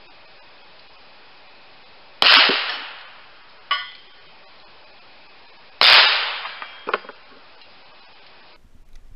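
Two shots from a High Standard .22 rimfire pistol, about three and a half seconds apart, each followed by a fading echo. Between them comes a short metallic ring of a struck steel target, and a smaller clank follows the second shot.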